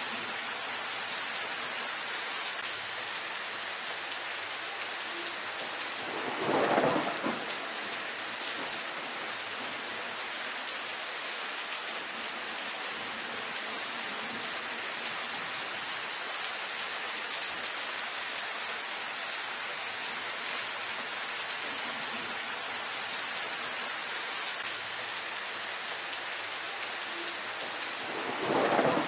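Steady rain falling on leafy foliage, an even hiss throughout. Twice, about seven seconds in and again near the end, it swells louder for about a second.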